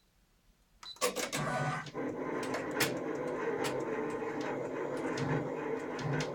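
Brother PR600 embroidery machine starting about a second in and then running steadily, with a whirring noise, a pulsing low hum and sharp clicks. The noise remains despite thorough oiling at the front; the owner suspects the upper shaft needs oiling or its bearings need replacing.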